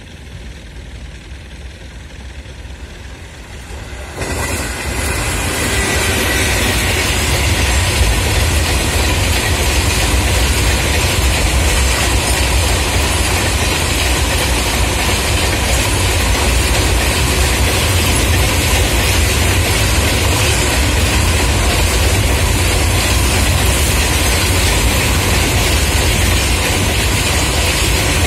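Long freight train passing close at speed: a fainter rumble of its approach, then about four seconds in the sound jumps up sharply as it reaches the spot, followed by a loud, steady rumble of goods wagons' wheels running over the rails.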